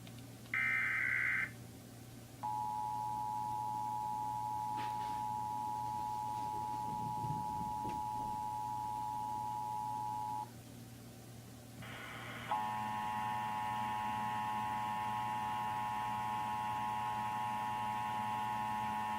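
Emergency Alert System test tones: a one-second burst of warbling data tones, then the two-tone attention signal, a steady pair of pitches held about eight seconds. After a pause of about a second a short burst comes again and the attention signal restarts, harsher, with extra overtones.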